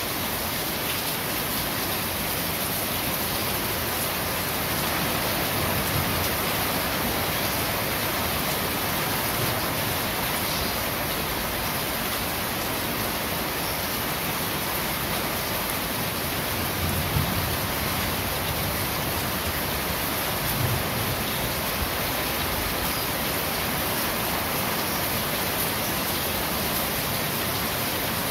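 Steady rain falling on a corrugated sheet roof, an even hiss with no let-up. Two brief low thumps come a few seconds apart, past the middle.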